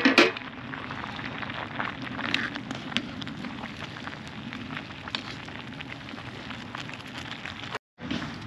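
Steady crackling and popping from cooking over heat, with a sharp knock right at the start. The sound cuts out for a moment near the end.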